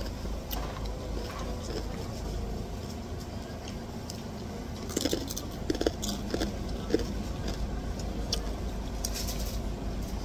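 Crunchy chicharon (fried pork rinds) being eaten out of a plastic bag: scattered crackles and crunches, with sharper clusters about five and nine seconds in, over a steady low rumble.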